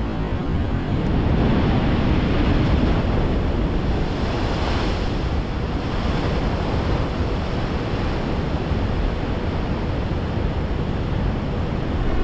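Ocean surf breaking and washing, with wind rumbling on the microphone. The surf swells louder a second or two in, and there is a brief rise in hiss around five seconds in.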